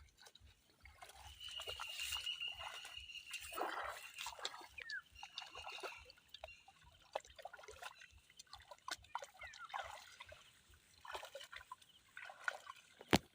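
Shallow pond water sloshing and splashing in irregular bursts as it is worked by hand, with a thin steady high tone in the first half and a sharp click near the end.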